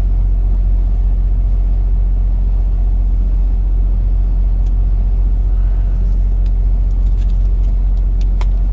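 Steady low rumble of a motor vehicle running, with a few faint light clicks.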